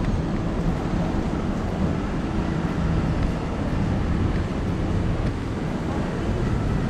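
Steady low rumbling noise of a moving vehicle, with wind on the microphone.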